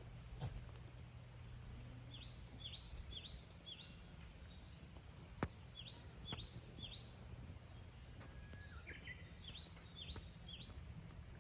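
A small bird singing outdoors: three short phrases of four or five quick, high chirping notes each, a few seconds apart. Two sharp clicks, one near the start and one about halfway through, over a steady low background hum.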